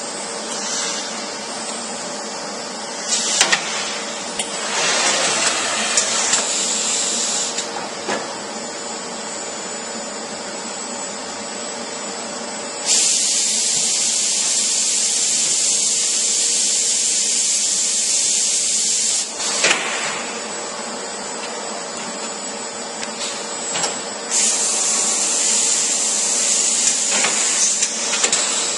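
Busellato CNC woodworking machine running with a steady hum. Louder stretches of high hissing noise come in twice briefly early on, then for about six seconds around the middle and again for a few seconds near the end.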